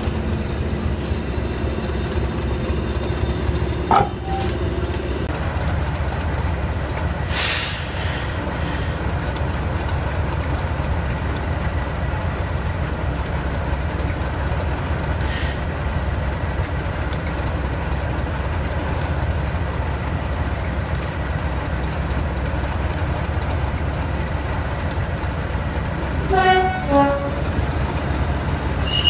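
English Electric Class 37 diesel locomotive with its 12CSVT V12 engine running steadily at idle. Two short hisses of air come about seven and fifteen seconds in, and a quick run of short pitched tones comes near the end.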